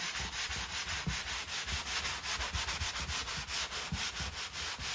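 Wet drywall sponge scrubbing over dried joint compound on a drywall wall in quick, even back-and-forth strokes, several a second: wet sanding to smooth the mud without dust.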